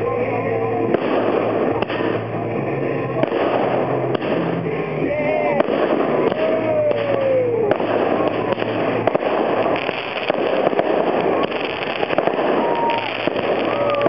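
Aerial fireworks shells bursting and crackling, mixed with music and spectators' voices.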